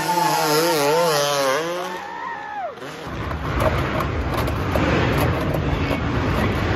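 A dirt bike engine revving, its pitch wavering up and down and then dropping away about three seconds in. Then a handheld power saw buzzes steadily as it cuts through a Honda CRF dirt bike's plastic bodywork near the rear wheel.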